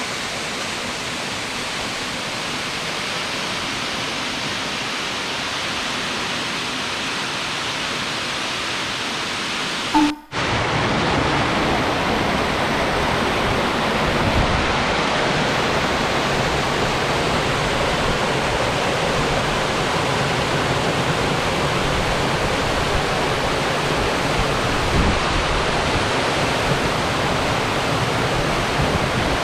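Waterfall water falling and splashing, a steady rush of noise. It cuts off briefly about ten seconds in and comes back a little louder and fuller.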